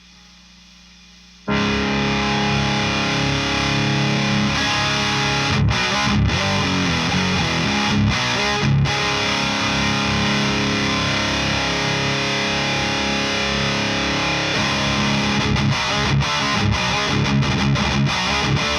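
Faint amp hum, then about a second and a half in an electric guitar starts playing, heavily distorted through an overdrive or boost pedal into a tube amp, and keeps playing steadily.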